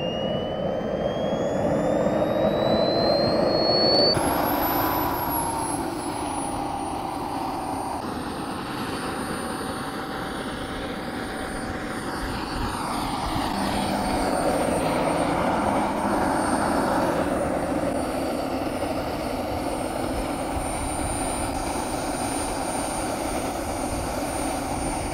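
KingTech K-80 model jet turbine: a whine rising steadily in pitch for about four seconds as it spools up, then a steady high-pitched whine over a dense rushing jet noise while it runs. The noise grows somewhat louder for a few seconds in the middle.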